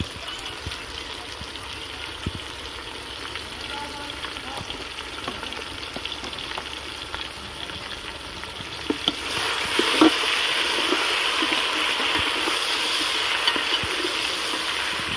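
Chopped tomatoes frying in ghee with onions and garlic in a pot: a steady sizzle with the clicks of a spoon stirring. The sizzle grows louder about nine seconds in.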